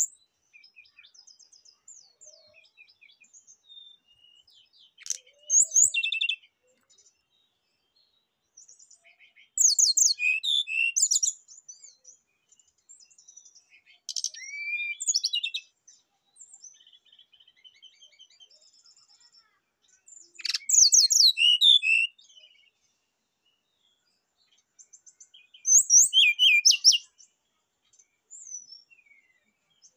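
Brown-chested jungle flycatcher singing: five short loud phrases of high, quick twittering notes, each about one to two seconds long and spaced roughly five seconds apart, with faint soft chirps in the pauses between them.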